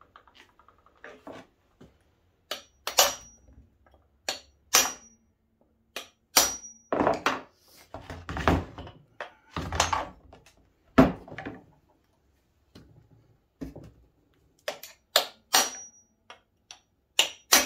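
Hammer blows on a punch against the tabs of a Yamaha Enticer 340 engine's crankcase, driving the halves apart. Sharp, irregular metallic strikes, some with a brief high ring, come in groups, with a pause of a few seconds before the last group.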